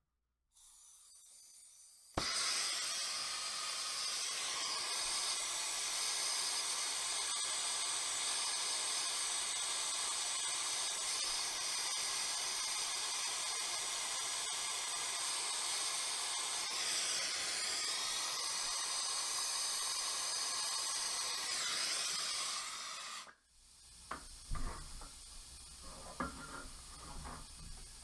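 Brazing torch flame hissing steadily while a copper refrigerant line joint on an evaporator coil is heated and brazed. The hiss starts suddenly about two seconds in and stops abruptly about five seconds before the end, followed by a few faint clicks.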